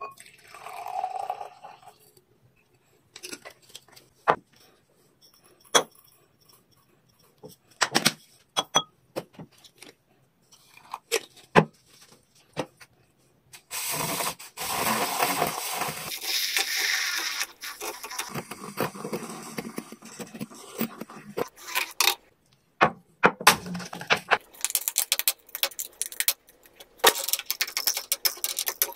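Iced-coffee making sounds: scattered clinks and knocks of ice and glassware, then liquid poured for several seconds from about halfway through, followed by more clinks and short splashes.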